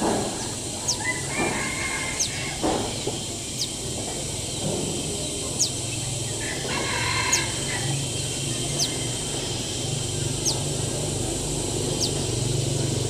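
A rooster crowing, over steady outdoor background noise, with short high chirps repeating every second or so.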